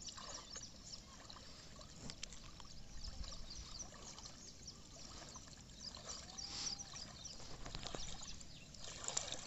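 Faint water dripping and trickling from a wet cast net as it is held up and gathered in shallow river water, with small splashes.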